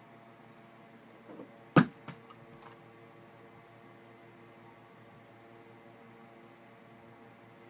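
One sharp knock about two seconds in, followed by a few lighter clicks, as a cat batting at small objects on a wooden dresser top knocks one about. Under it runs a steady high-pitched whine and a low hum.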